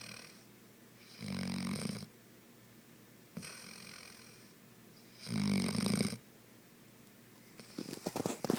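A sleeping pet snoring: two long rattling snores about four seconds apart, with a softer breath between them, then a short run of quick sputtering clicks near the end.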